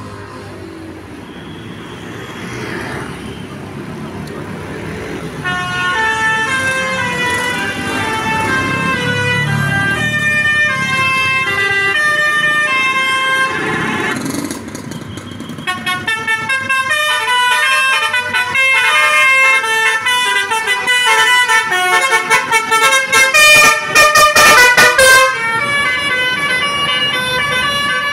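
Basuri V3 telolet multi-tone bus horn playing a tune of stepped notes, after a few seconds of rising vehicle noise. From about halfway through the notes come quicker and choppier, loudest near the end.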